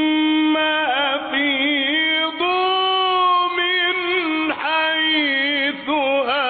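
Arabic religious chanting by a solo, unaccompanied male voice: long held, ornamented melodic phrases, with short breaks for breath about four and a half seconds in and again near the end.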